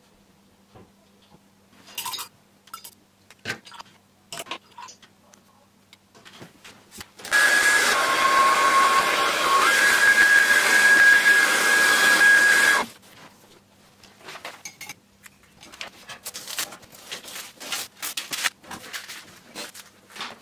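A hair dryer blows for about five seconds on the wet watercolour painting, a rush of air with a steady whining tone on top. Before and after it there are scattered small clicks and rustles.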